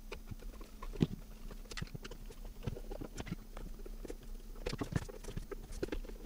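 Irregular clicks and knocks as a screwdriver undoes the screws on the back of a small plastic-cased DVD player and the unit is turned over and shifted on the bench. The loudest knock comes about a second in.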